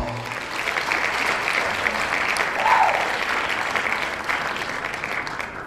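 Audience clapping as the music stops, with one brief whoop about halfway through; the applause gradually fades toward the end.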